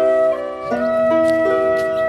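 Background music: a tune of held notes played together, stepping to new pitches a few times a second.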